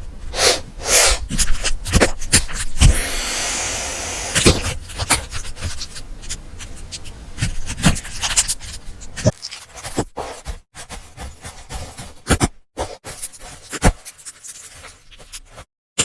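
A hamster's small feet scrambling over keyboard keys: quick irregular clicks and taps mixed with scratchy rubbing, with a denser rasping scrape a few seconds in. The sound breaks off abruptly a few times.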